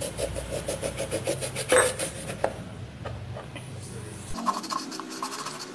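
Small kitchen knife sawing through a lemon onto a plastic cutting board: a quick run of rasping strokes, about six a second, then a few sharper cuts around two seconds in.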